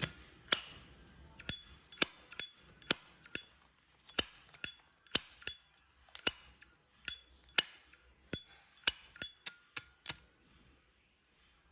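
Solid brass Zippo lighter's lid being flicked open and snapped shut over and over: sharp metallic clicks, many with a bright ringing clink, about two a second, stopping near the end.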